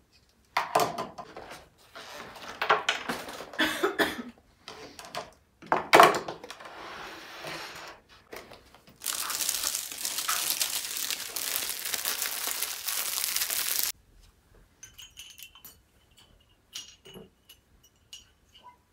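Household handling sounds: crinkling, clicks and knocks for the first six seconds. Then about five seconds of steady hissing that cuts off suddenly, followed by a few light clicks.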